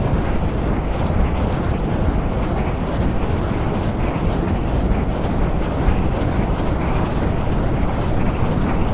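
Wind blowing steadily: a dense, continuous rush of noise, heaviest and deepest in the low end, with small swells in strength.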